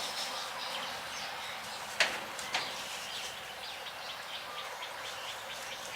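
Outdoor rural background with faint bird chirps over a steady high hiss, broken by a sharp click about two seconds in and a softer one just after.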